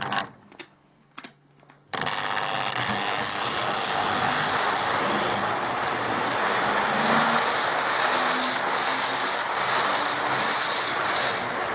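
A few clicks, then about two seconds in a 1960s Tri-ang 0-4-0 tank model locomotive starts running steadily. Its motor whirrs and the wheels of its long train of coaches rattle along the track as they pass close by.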